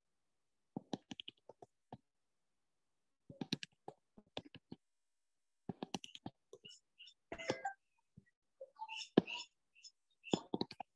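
Felt-tip marker drawing on paper: faint clusters of quick taps and short scratches as lines and dashes are drawn, with pauses between the clusters.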